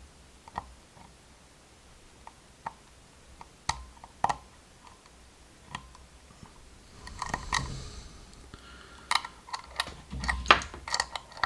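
A dimple lock pick clicking and scraping against the pins inside a Mul-T-Lock Integrator lock: a few separate sharp clicks at first, then a denser run of clicks and scraping over the last few seconds.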